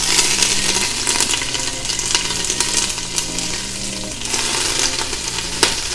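Washed collard greens sizzling and popping in hot oil in an electric pressure cooker's stainless inner pot on sauté mode, the water on the leaves spattering. The hiss starts abruptly as the greens go in, with sharp crackles throughout.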